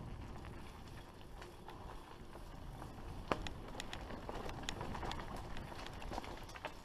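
Mountain bike rolling fast down a rough dirt trail: tyres on dirt and dry leaves under a steady rumble, with frequent sharp clicks and rattles from the bike over bumps, the loudest knock a little past three seconds in.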